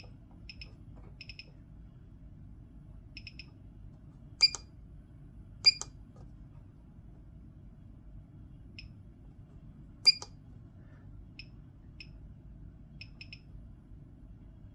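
Small, crisp clicks from electronic test-equipment controls being worked, scattered singly and in quick pairs, with three much louder clicks at about four and a half, six and ten seconds in. A faint low hum runs underneath.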